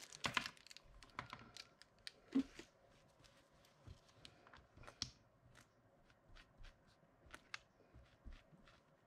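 Faint, irregular light taps and rustles of a round foam ink-applicator pad dabbed over a stencil on a paper card, with the card shifted on a wooden tabletop. A few taps stand out, about a quarter second in, near two and a half seconds, at five seconds and near seven and a half seconds.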